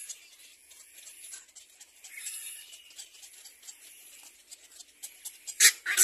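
Cormorant chicks in the nest making high, thin squeaky begging calls, with one short, louder sharp sound near the end.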